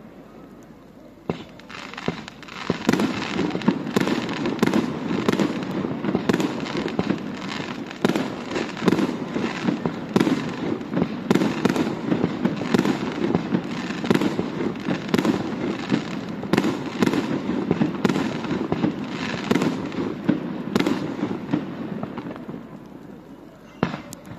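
Aerial fireworks going off in a dense run. Many sharp bangs and continuous crackling start about a second in and die away near the end, followed by a couple of single bangs.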